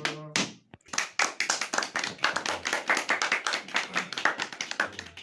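The music stops with a last stroke, then a small group of listeners claps for about four seconds as applause for the song.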